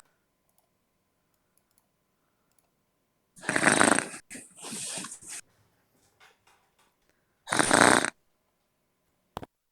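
A person snoring heard over a Discord voice call: a rough snore about three and a half seconds in that runs on into a second breath, then another snore about four seconds later, with dead silence between. A short click near the end.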